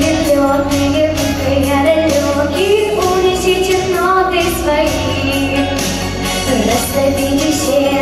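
A young girl singing a melody into a handheld microphone over a pop backing track with a steady beat.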